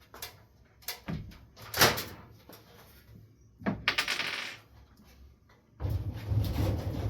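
Knocks and bumps of a wooden shelf arm and tools being handled. The loudest knock comes about two seconds in, a short scraping noise follows around four seconds, and a steadier low rumbling noise starts near the end.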